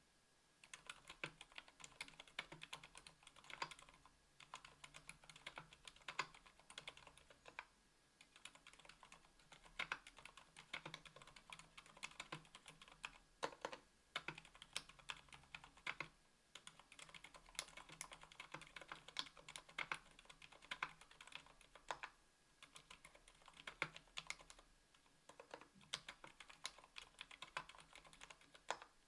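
Typing on a KBDfans Tofu 60% aluminum keyboard with stock Gateron Silent Black Ink linear switches (60 g) and GMK keycaps. The keystrokes are quiet and come in quick runs, with short pauses between them.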